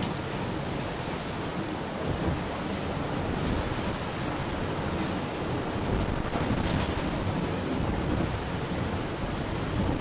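Steady rush of sea water and wind around an IMOCA 60 racing yacht under way, swelling slightly about six to seven seconds in.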